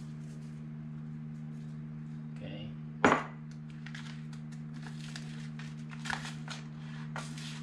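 A metal spoon clinking and scraping in a glass bowl as chopped vegetables are stirred, a run of quick light clicks through the second half. About three seconds in comes a single sharp knock, the loudest sound, as a salt shaker is set down on the table.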